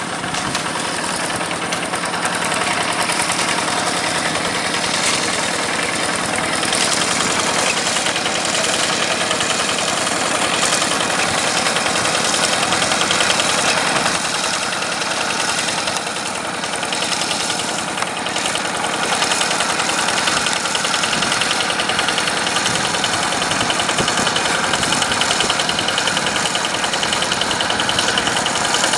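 Yanmar diesel engine of a rice-paddy tractor running steadily with a rapid, even chugging beat, dipping slightly in loudness a couple of times.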